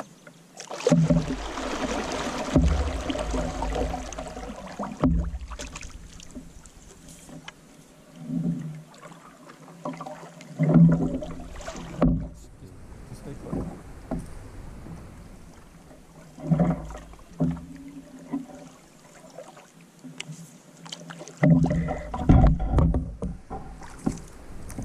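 Canoe paddles dipping and pulling through calm lake water, with louder strokes and splashes coming every few seconds.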